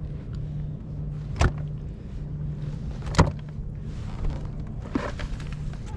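Two sharp knocks on a kayak, the second louder, over a steady low rumble of wind on the microphone.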